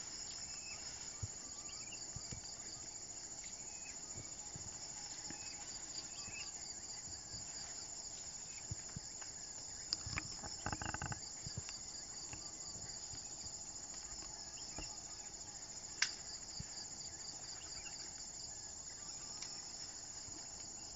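Steady, high-pitched insect chorus with a fast pulsing trill. About ten seconds in there is a brief, lower sound, and a sharp click comes at about sixteen seconds.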